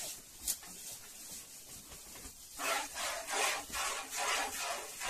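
Cow being milked by hand: jets of milk squirting into a plastic bucket in a quick even rhythm of about three strokes a second, starting about two and a half seconds in.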